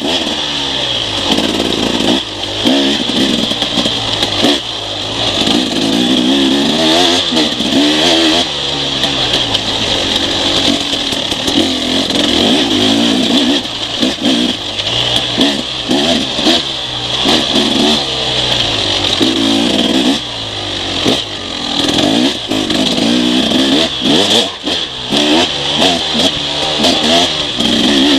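Enduro motorcycle engine revving hard and easing off over and over as the bike is ridden fast along a rough trail, with repeated knocks from the bumpy ground.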